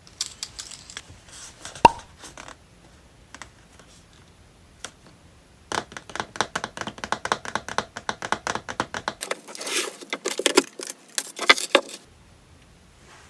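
Close-up handling of small purchased items and their packaging: crinkling, tearing and quick clicks, with one sharp click about two seconds in, then a dense run of rapid crackling and clicking from about six seconds in until near the end.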